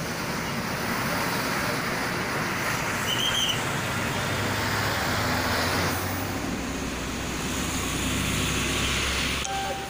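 Road traffic at close range: diesel buses and trucks idling and crawling past, their engines running with a low, steady rumble. A short high squeak sounds about three seconds in.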